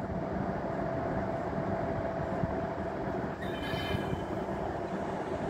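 Croatian Railways electric locomotives rolling slowly through the station: a steady low rumble with a constant hum, and a brief high wheel squeal about three and a half seconds in.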